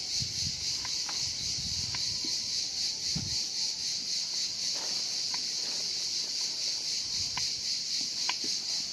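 A steady, high-pitched insect chorus, pulsing slightly. Faint low rustling in the first few seconds and a few scattered faint clicks.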